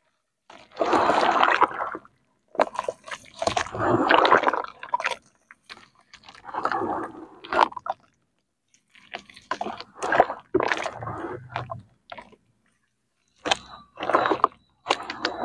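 Wet red dirt squelching and muddy water sloshing as bare hands squeeze and crumble soaked lumps in a plastic tub. It comes in bursts of one to three seconds with short silent gaps between them.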